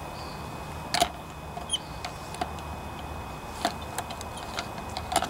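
Metal needle-nose pliers clicking and scraping against a plastic measuring cup of Coke while fishing out soaked carburetor parts. A few sharp clicks come about a second in, near four seconds and near the end, with lighter ticks between.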